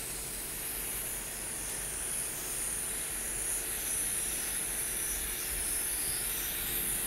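Aerosol spray paint can hissing steadily as a thin black outline is sprayed, the nozzle pressed finely to control the line.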